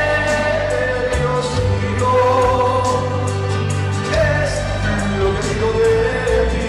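A man singing a Christian worship song into a microphone, holding long notes over backing music with a bass line and percussion.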